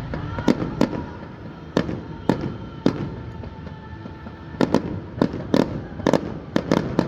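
Fireworks bursting in sharp bangs: a handful spaced out over the first three seconds, then a quicker run of bursts from about four and a half seconds on.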